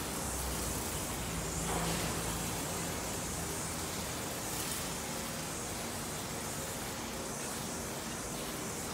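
Steady hiss-like background noise with a faint low hum underneath, without distinct events.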